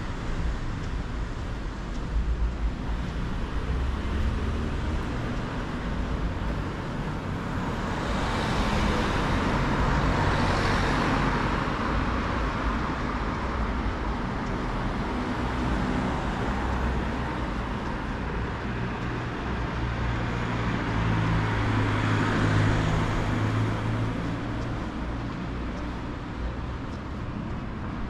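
City street traffic: cars driving past on the road, their tyre and engine noise swelling as a vehicle passes about ten seconds in and again a little over twenty seconds in, with a low engine hum under the second pass.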